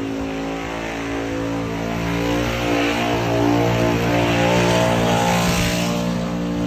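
Supercharged 1000-plus-horsepower car engine running at fairly steady revs with a hiss over it. It gets louder for a few seconds in the middle, then eases off.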